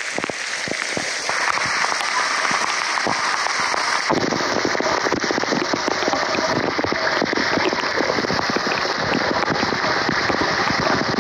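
Heavy thunderstorm rain pelting the wet ground: a dense patter of drop impacts that grows louder about four seconds in.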